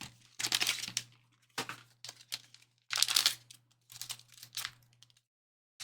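Trading-card box packaging being torn and crinkled open by hand, in about five short bursts with brief pauses between.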